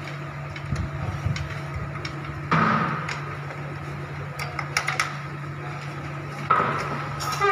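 Steel frame parts of a folding fitness bench clicking and clanking as they are handled and slotted together. Two louder scraping clanks come about two and a half and six and a half seconds in, over a steady low hum.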